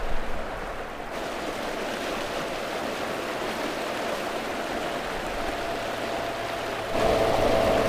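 Water rushing and splashing in the wake of an aluminium jon boat running at full throttle, over the steady whine of a Newport Vessels NT300 electric outboard. About a second before the end, the whine gets much louder and a low hum joins it.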